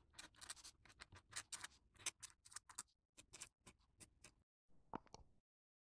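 Faint quill pen scratching on paper, a quick irregular run of short strokes that stops near the end.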